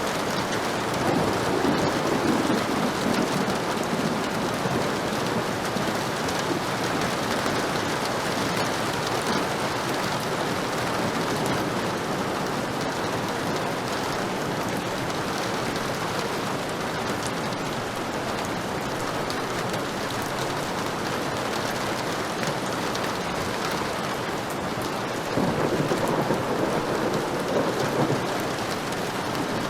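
Heavy rain falling steadily in a dense hiss, with a roll of thunder about a second in and another near the end.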